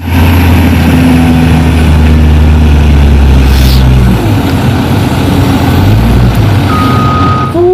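Heavy diesel engine of a Caterpillar wheel loader running loudly as it lifts its bucket and dumps sand into a dump truck; its note shifts about four seconds in. A short steady beep sounds near the end.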